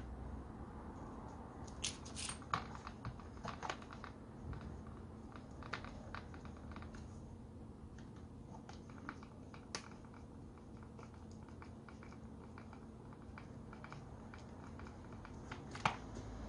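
Hand screwdriver working on a plastic electric drill housing: scattered small clicks and ticks, bunched in the first few seconds, with a sharper click near the middle and another near the end.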